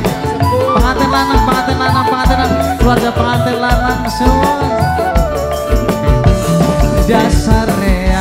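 Live tarling band music: a bamboo suling flute plays a melody with long held notes and slides over drums and shaken percussion keeping a steady beat.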